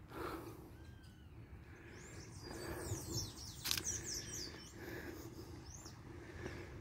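Small birds chirping: a quick flurry of high, downward-sweeping chirps starting about two seconds in, with a single sharp click partway through.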